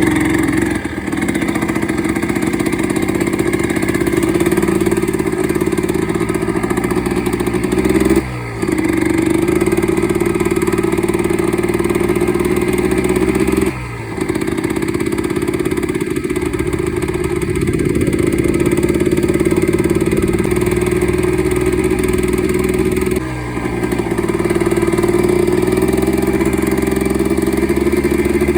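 Yamaha Blaster's 195cc single-cylinder two-stroke engine running hard while the quad is ridden, its pitch creeping upward and then dropping briefly three times, as on gear changes. The engine has a freshly rebuilt top end and, by the owner's account, is running really rich.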